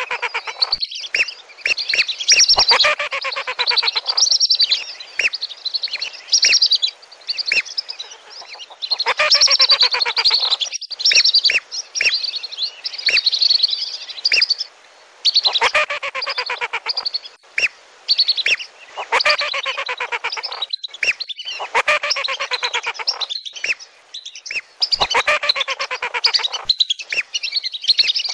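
A flock of whistling ducks (lesser and wandering whistling ducks) calling in dense bouts of high, chattering whistles. The bouts last a few seconds each, with short breaks between them.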